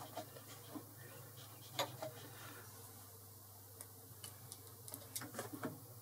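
Faint, irregular clicks and ticks as a Boxford lathe's chuck is turned slowly by hand while a 3 mm die cuts a thread on a small aluminium stud. The sharpest click comes about two seconds in and a quick run of clicks near the end, over a steady low hum.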